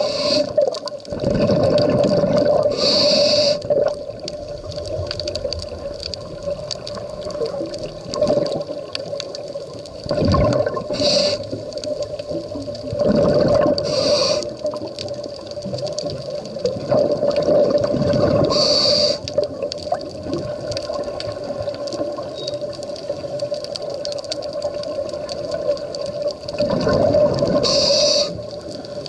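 Scuba diver breathing through a regulator underwater: long rushes of exhaled bubbles gurgling past the microphone, each followed by a short hiss of an inhaled breath, repeating in a slow cycle several times. A steady hum runs underneath.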